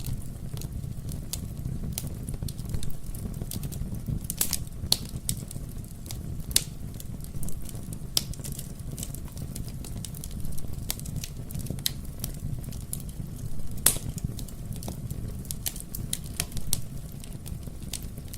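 Wood burning in a fireplace, crackling with irregular sharp pops over a steady low rumble of the flames. One louder pop comes about fourteen seconds in.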